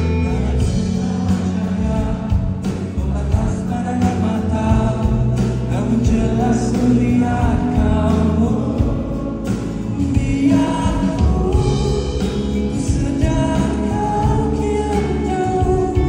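Live band music with singing over it: acoustic and electric guitars and drums played through a concert sound system.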